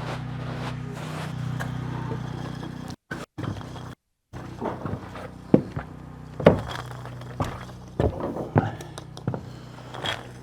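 A steady low mechanical hum from a running motor, with scattered sharp knocks and taps from roofing work in the second half; the sound cuts out briefly twice around three and four seconds in.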